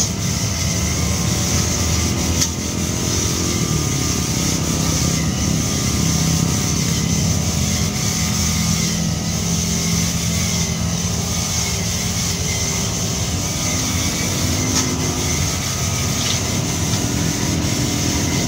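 A steady engine hum with a constant high hiss over it.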